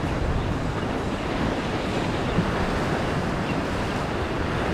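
Sea surf washing and breaking against shoreline rocks, a steady rushing wash, with wind buffeting the microphone.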